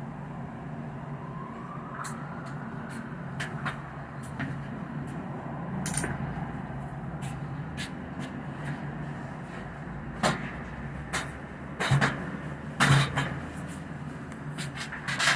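Scattered sharp clicks and knocks from work on accordion storm shutters, with a few louder knocks after about ten seconds and near the end. Underneath is a steady low hum of traffic, and a passing siren dies away at the start.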